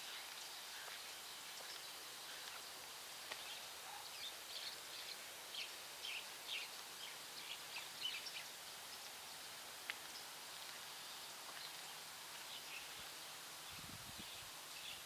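Small birds chirping in short, scattered calls over a steady faint outdoor hiss, busiest in the middle. A single click and, near the end, a brief low thump.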